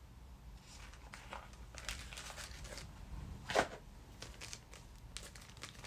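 Small jewellery packaging being handled: a box opened and a clear plastic bag rustling and crinkling in the hands, in short scattered rustles with one sharper crinkle a little past halfway.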